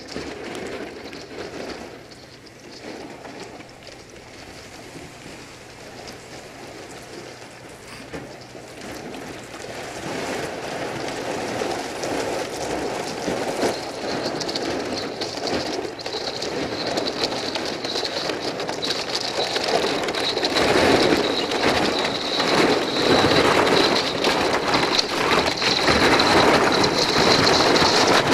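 A steel-hulled barge breaking through canal ice: a dense crackling and crunching of ice against the hull, growing steadily louder as the boat comes closer and loudest near the end. A thin, steady high whine sets in about halfway.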